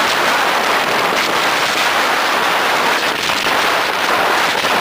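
Steady, loud rushing noise of riding a quad bike at speed: wind buffeting the camera microphone over the engine and tyre noise, with no clear engine note standing out.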